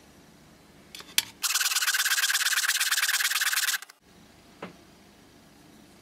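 A 3 mm brass tube being cut: a loud, even, harsh rasping for about two and a half seconds that starts and stops abruptly, after two light clicks.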